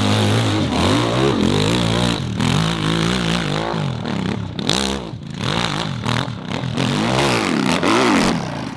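Racing motorcycle engines revving hard, the pitch climbing and dropping again many times as the bikes accelerate and change gear.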